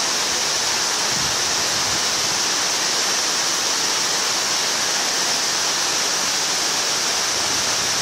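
Khlong Lan Waterfall: a loud, steady rush of falling water.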